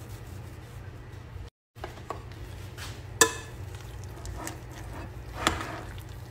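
A utensil stirring mashed potato and eggplant in a glass mixing bowl, with a few sharp clinks against the glass, the loudest about three seconds in and again about five and a half seconds in, over a low steady hum.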